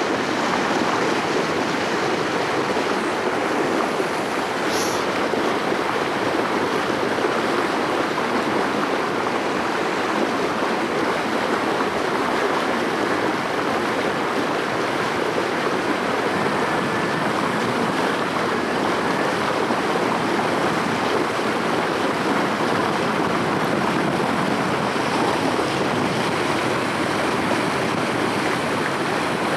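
Steady rushing and splashing of water along the hull of a sailboat under way.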